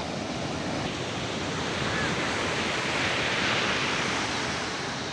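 Large sea waves breaking and rushing in, one surge building to a peak about three seconds in and then easing off.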